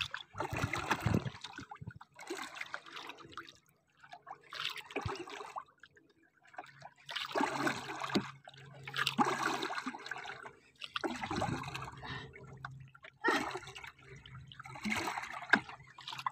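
Seawater splashing and lapping against a small boat's hull in irregular bursts every second or two.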